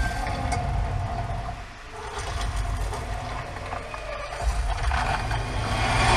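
Action-video soundtrack played through a BMW X1's factory speakers from an aftermarket Android screen: vehicle rumble and effects with some music. It dips about two seconds in, then builds toward the end.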